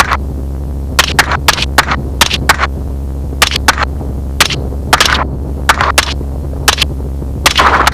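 Rapid, irregular rifle fire from shooters aboard a helicopter: about twenty sharp shots, some in quick pairs and clusters, over the steady low drone of the helicopter.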